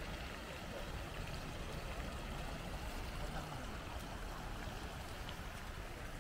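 Hot spring water flowing steadily in a stream, an even rushing sound over a low rumble.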